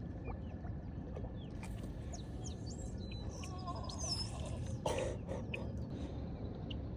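Birds chirping and whistling in short, curving calls over a steady low rumble, with a brief broad rustle about five seconds in.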